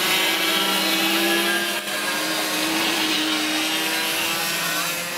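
Several racing go-kart engines running hard out on the track, a steady buzzing whose pitch drifts up and down a little as the karts accelerate and ease off.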